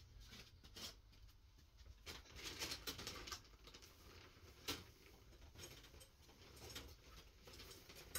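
Near silence with faint scattered clicks and rustles of small objects being handled, including a short busier patch of rustling about three seconds in and a single sharper click just before five seconds.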